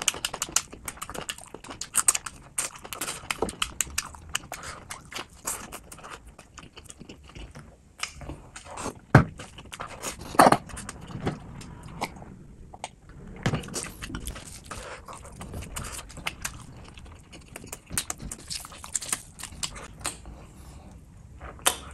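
Close-up eating sounds: wet chewing and lip-smacking, with the squelch of bare fingers mixing rice into chicken gravy. The sounds come as a run of short wet clicks and smacks, two of them louder about nine and ten and a half seconds in.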